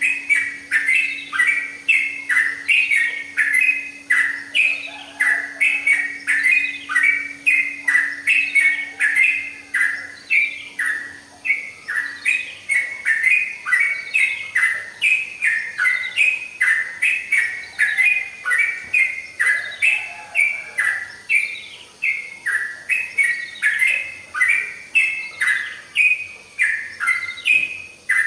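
Yellow-vented bulbul (trucukan) singing without pause: a fast, busy run of short whistled notes, each sliding down in pitch, several a second. A faint steady hum underneath stops partway through.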